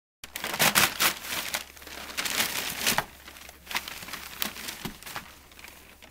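Paper bedding crinkling and rustling as a tri-colour collie noses and pushes at it, in irregular bursts. The bursts are loudest in the first three seconds and die down toward the end.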